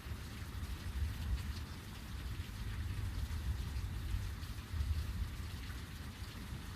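Heavy rain falling steadily, with a low rumble underneath that swells slightly about a second in and again near five seconds.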